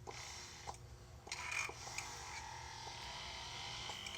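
Electric breast pump running: faint, regular mechanical clicks at a slow steady beat, with a soft hiss over the second half.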